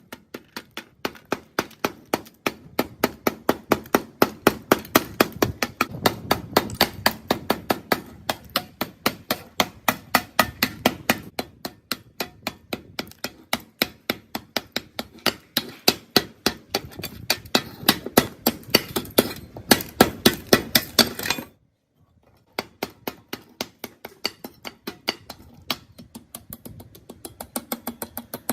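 Hammer blows on metal in a quick, steady run of about four strikes a second, with a break of about a second near the end before they resume.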